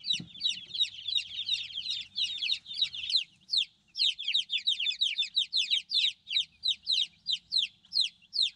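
A flock of five-day-old Freedom Ranger chicks peeping: a steady stream of high, downward-sliding peeps, several a second, with a short lull about three and a half seconds in.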